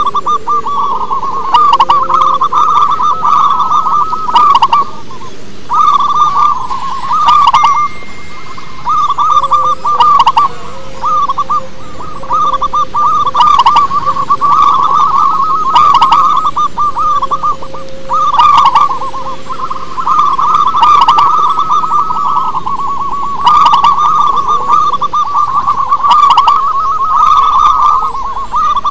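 Zebra dove cooing: long phrases of rapid, staccato coos, repeated again and again with short pauses between them.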